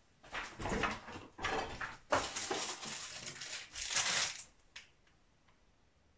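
Food packages being moved about and rummaged through in an open refrigerator: a series of rustles and knocks that stop about four and a half seconds in.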